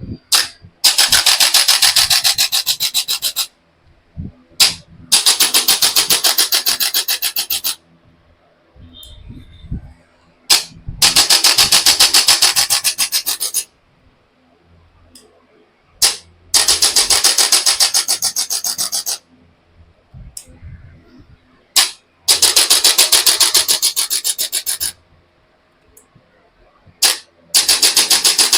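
A rapid mechanical rasping buzz in six bursts of about three seconds each, separated by short pauses, with a sharp click just before each burst starts.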